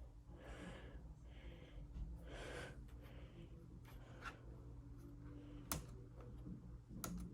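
Faint handling noise, soft rustles, with a few short sharp clicks near the end.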